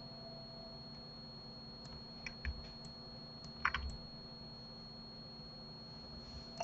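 A few short clicks of a computer keyboard and mouse, between about two and four seconds in, over a faint steady hum and a thin high tone.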